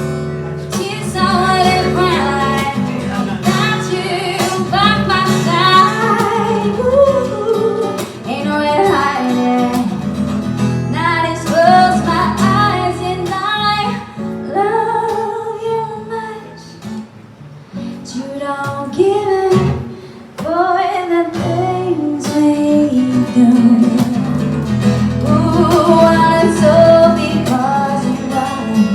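A woman singing a slow song to acoustic guitar accompaniment. The music goes quieter for a few seconds about halfway through, then comes back.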